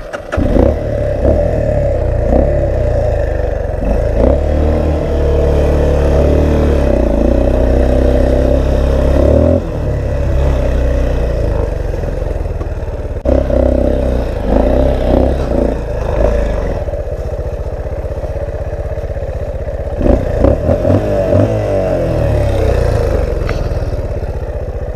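Trail motorcycle engine firing up suddenly after a stall, then ridden with revs rising and falling and knocks and clatter from the bike over rough ground. The engine has been cutting out, with the bike hot and short of power.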